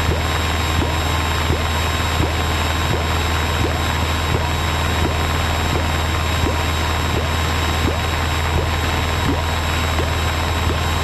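Piper PA-28's piston engine and propeller running steadily in flight, heard inside the cabin as an even drone mixed with airflow noise.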